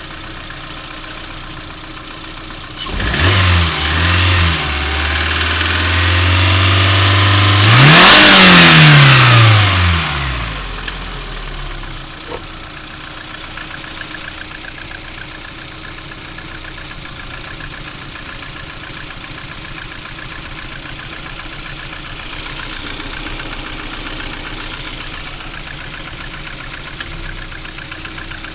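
Lada Priora's four-cylinder engine idling, revved up about three seconds in and held, then revved higher and let fall back to idle around ten seconds in. The engine has a knock that the owner is recording.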